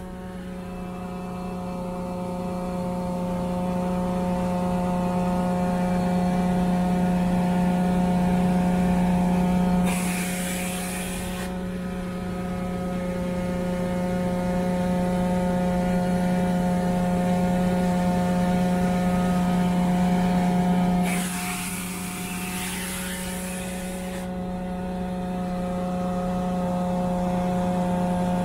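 Truckmount carpet-cleaning unit running steadily through an upholstery extraction tool as it passes over a couch cushion: a loud, even machine hum that slowly swells. Two stretches of hiss come in, about ten seconds in and again about twenty-one seconds in, while the hum dips.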